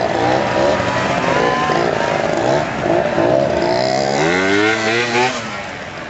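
Motor scooter engines revving, several pitches rising and falling over one another, with one engine revving up hard about four seconds in and dropping off shortly after five seconds.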